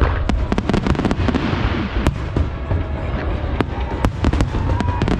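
Fireworks display: aerial shells bursting in quick succession, many sharp bangs and cracks over a steady low rumble.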